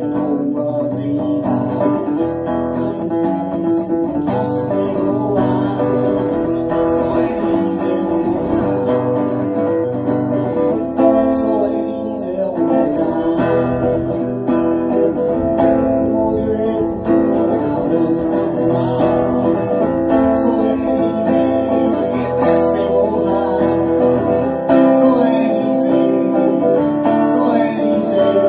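Electric archtop guitar with a P-90 pickup played through powered PA speakers: a continuous run of picked notes and strummed chords.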